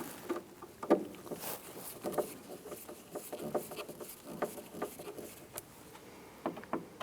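Door panel screws being tightened with a hand tool: irregular light clicks and taps, the loudest about a second in.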